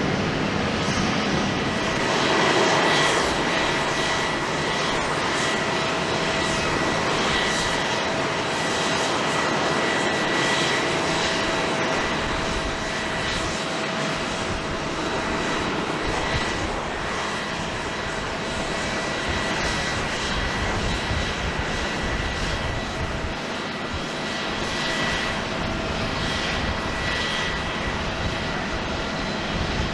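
Boeing 737-800's CFM56 turbofan engines running: a steady jet roar with high, steady whine tones.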